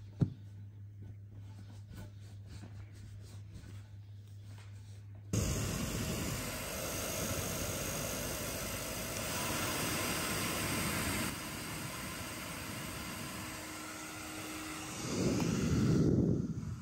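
Pet grooming blow dryer switched on about five seconds in and running with a steady rushing hiss while a wet cat's coat is dried and brushed. It gets louder near the end, then cuts off.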